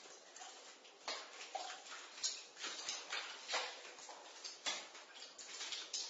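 Water dripping in a basement: irregular drops striking at a few a second, some with a short pitched plink.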